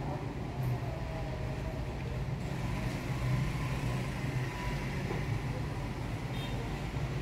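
Steady low mechanical hum, like an engine or motor running, at an even level throughout.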